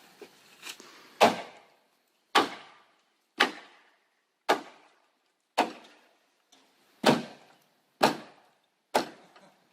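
Eight sharp knocks, about one a second, as a wooden 4x4 deck support post is struck to drive it into place.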